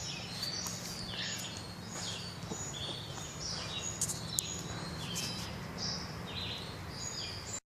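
Small birds chirping again and again in short, high, falling notes over a steady low hum. A couple of light clicks come about four seconds in.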